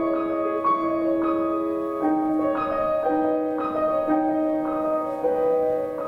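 Live music from an instrumental quartet: a slow passage of held chords and single notes, with a new note or chord coming in every second or so.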